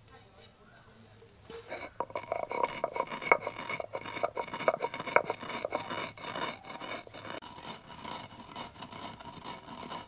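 Cooled dry-roasted rice grains being ground to a fine powder: a dense, rapid rattling and scraping of the hard grains that starts about two seconds in, with a steady tone under it.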